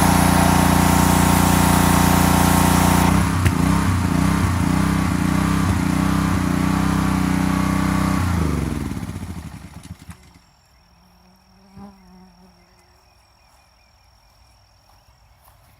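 Honda-engined gas pressure washer running steadily, its sound shifting about three seconds in, then shut off: the engine winds down and stops about ten seconds in.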